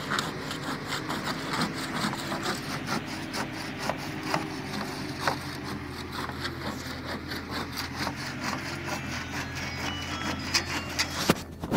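Diesel engine of heavy site machinery running steadily, with many short knocks and clicks over the hum.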